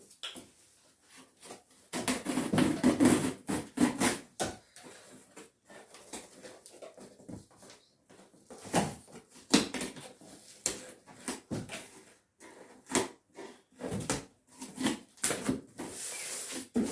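Rustling, crackling and knocking as a parcel's plastic packaging is handled and torn open by hand.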